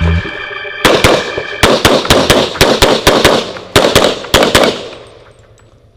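Rapid pistol fire from a .40 S&W Tanfoglio (EAA) Witness Limited-class pistol: a string of about eighteen shots, many in quick pairs with short breaks between them. The string starts about a second in and ends a little before five seconds.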